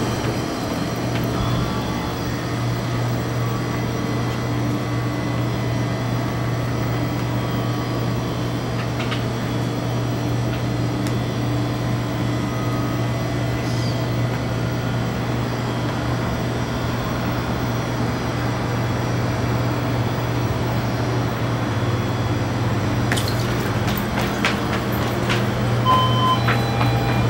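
A steady low hum and rumble, with a few sharp clicks near the end and two short high beeps just before it ends.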